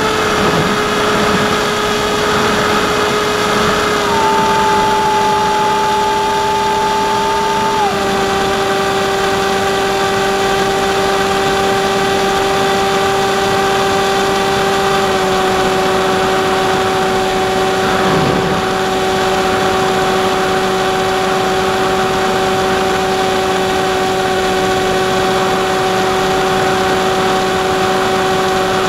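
Brushless electric motor and propeller of an AXN Floater Jet RC plane running steadily in flight, a steady whine over wind rush, picked up by the onboard camera. Its pitch steps down slightly about four and eight seconds in as the throttle is eased.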